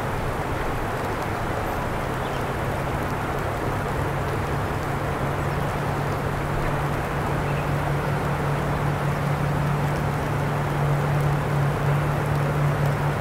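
Steady outdoor ambience: an even hiss with a constant low machine hum under it, the hum growing a little louder near the end.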